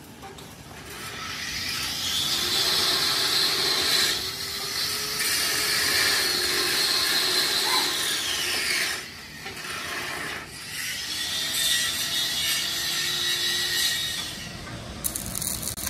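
A power tool working steel in two long passes, with a short break about nine seconds in; its pitch rises as each pass starts and falls as it ends.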